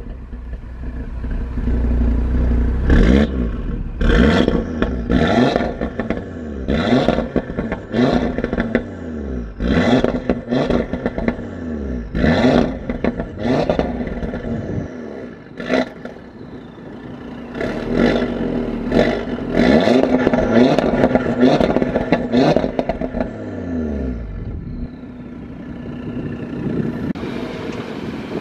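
Audi RS3 sedan's turbocharged 2.5-litre five-cylinder revved again and again while stationary: quick throttle blips that rise and fall about once every second or two, with sharp crackles and pops from the exhaust around the peaks.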